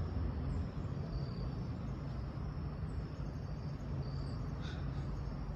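A few short, faint, high insect chirps over a steady low background rumble.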